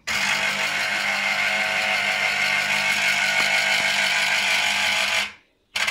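Small electric citrus juicer running as an orange half is pressed down onto its spinning reamer, a steady motor whir. It stops a little after five seconds in and starts again just before the end, as the pressing is let up and repeated.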